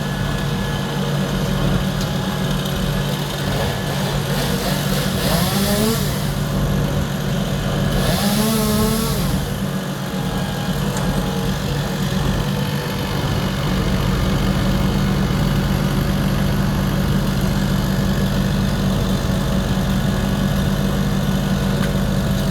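A vehicle engine idling steadily, with brief distant voices twice.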